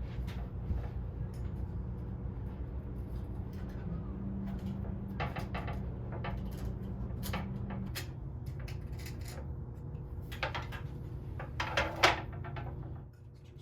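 Scattered clicks and scrapes of hands working a window screen and its frame, loudest about twelve seconds in, over a steady low mechanical hum.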